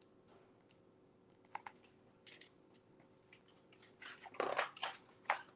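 Paper pages of a picture book rustling and crackling as they are turned and handled: scattered soft clicks, then a louder cluster of crackles about four seconds in.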